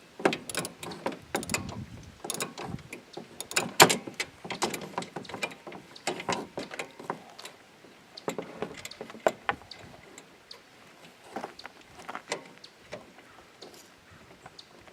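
Irregular metallic clicks and knocks of hand tools and metal parts being handled while a hood latch is fitted and bolted in. The clicks come thickest in the first half, with one louder knock about four seconds in, then thin out.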